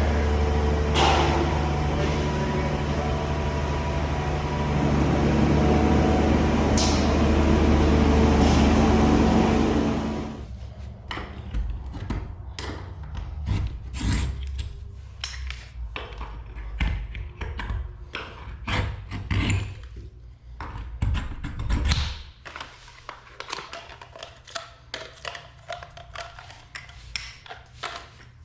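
A steady, loud machine hum that cuts off abruptly about ten seconds in, followed by scattered clicks and knocks of tools and materials being handled.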